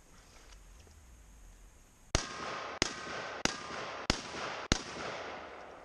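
SKS semi-automatic rifle in 7.62x39 firing five quick shots, evenly spaced about two-thirds of a second apart, starting about two seconds in. Each shot is followed by an echo that dies away after the last one.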